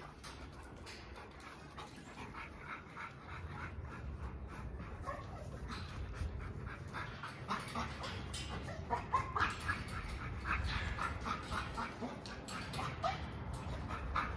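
XL pitbull-type American bully dog moving about and whining softly, with scattered short high whines and many short sharp clicks, growing busier and louder through the second half.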